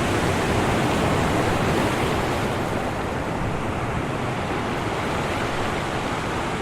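Ocean surf washing onto the shore as a continuous rushing wash, a little stronger in the first couple of seconds and then easing.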